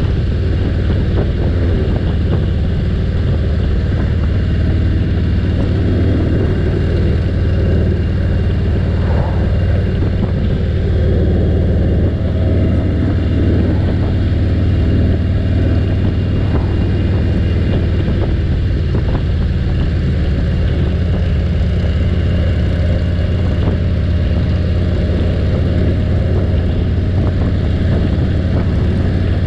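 Harley-Davidson Road King's V-twin engine running steadily at cruising speed, heard from the rider's seat, with wind and road noise over it.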